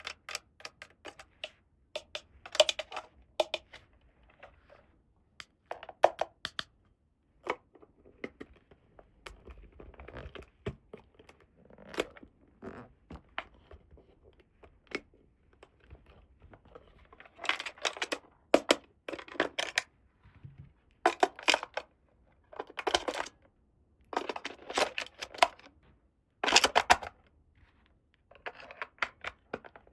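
Toy packaging and small plastic toy pieces being handled close up: a string of sharp clicks and taps mixed with short tearing and rustling noises, busiest in the second half.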